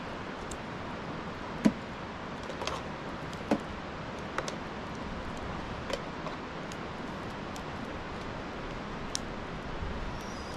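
Metal spoon clinking and scraping against a metal pot and a large metal tray as cooked rice is scooped out and spread, a few irregular sharp clinks over a steady background hiss.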